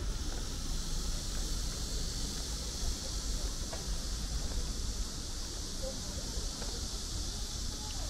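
Outdoor ambience by a city stream: a steady high hiss with a low rumble underneath, unchanging throughout.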